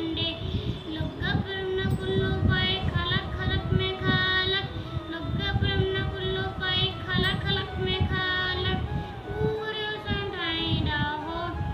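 A child's voice singing a devotional hymn in long, wavering notes over steady instrumental accompaniment.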